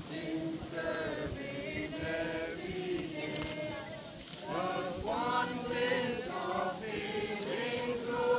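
A crowd of people singing together, unaccompanied, many voices on one slow tune; the singing dips briefly about halfway through and comes back fuller.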